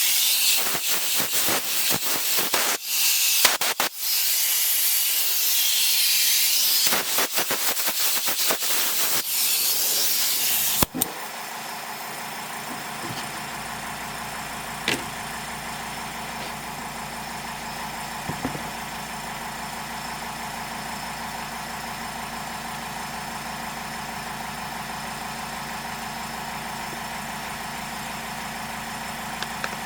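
A loud, rushing hiss with brief breaks stops abruptly about eleven seconds in. A steady engine hum follows: the Poulan P3816's small two-stroke engine idling.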